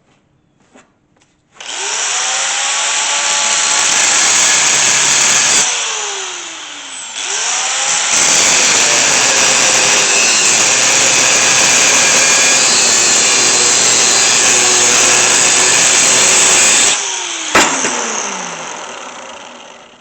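Power saw cutting through 1.5-inch steel pipe in two runs with a loud, hissy cutting noise. Each run ends with the motor winding down in a falling whine, the first about a third of the way in and the second near the end. A sharp click comes as the second run stops.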